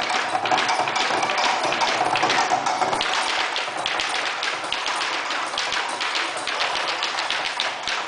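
Malambo sapateio: a dancer's boots stamping and tapping the floor in rapid rhythmic runs, many sharp strikes a second with heavier heel thumps among them.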